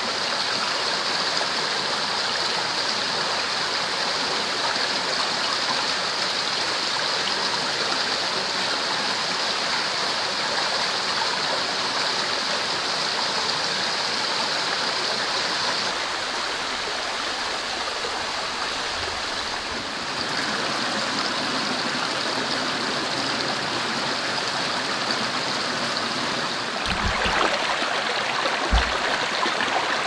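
Mountain stream running over rocks, a steady rushing of water. A couple of short, low thuds come near the end.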